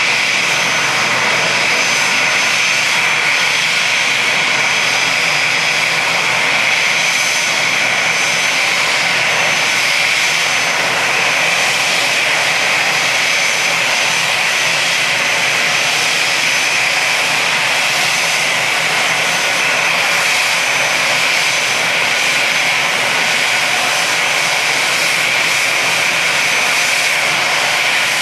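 Airbus A320's twin turbofan jet engines running at taxi power: a loud, steady whine over an even rush that holds level throughout.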